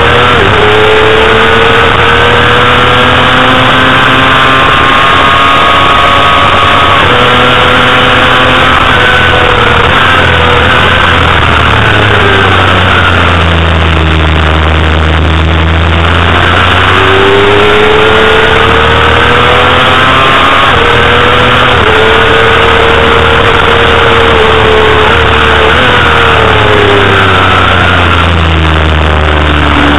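Honda CBR250RR's 250 cc inline-four engine running at high revs under racing load, recorded onboard with heavy wind noise. Its pitch climbs and steps down at each gear change, sinks lower for a few seconds about halfway through, then rises again as the bike accelerates.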